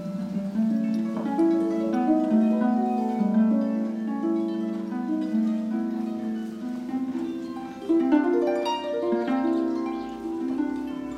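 Pedal harp played solo: plucked notes ringing on and overlapping in a flowing line, with a louder, sharper chord about eight seconds in.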